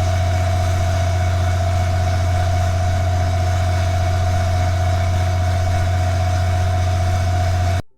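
A 38–40 kilowatt standby generator running at 100% load: a steady, loud low hum with a constant higher tone above it. It cuts off suddenly near the end.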